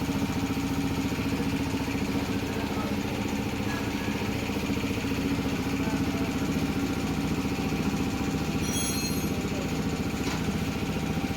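Motorcycle engine idling steadily, with a brief high squeak about nine seconds in.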